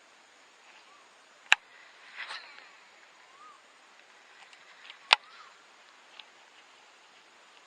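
Two sharp, loud clicks about three and a half seconds apart, with a brief rustling noise just after the first. Faint short rising-and-falling chirps of birds come and go in the background.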